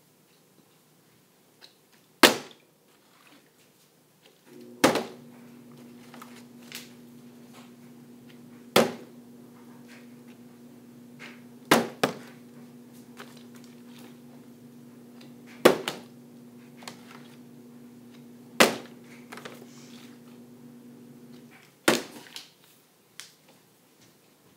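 A plastic water bottle partly filled with water, flipped and hitting the floor again and again: seven sharp thuds, one every three to four seconds. A steady low hum starts about four seconds in and stops near the end.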